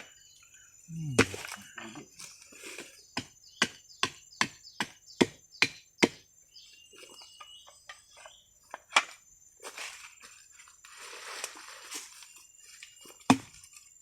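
A series of sharp chopping knocks on wood, about two a second for a few seconds, then a couple of single strikes near the end. A faint, steady high insect buzz runs behind them.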